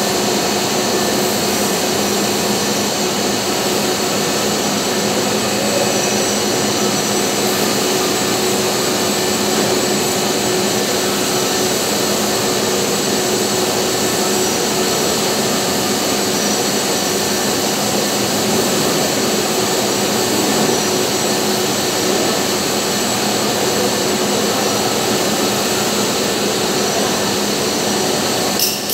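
Steady, loud running of shop machinery: an even mechanical noise with several constant hum tones and no breaks or changes.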